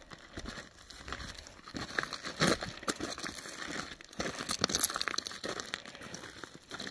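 Footsteps crunching on loose rocky ground while hiking, an irregular run of steps with louder ones about two and a half and five seconds in.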